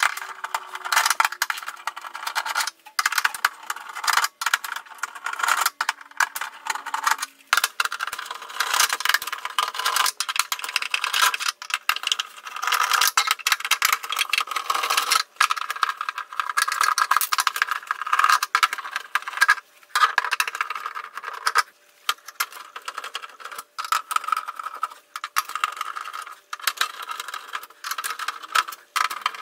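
Hand screwdriver backing screws out of the plastic bottom case of a Casio CTK-541 keyboard: a dense run of scratchy grinding and rattling clicks, broken by short pauses every few seconds.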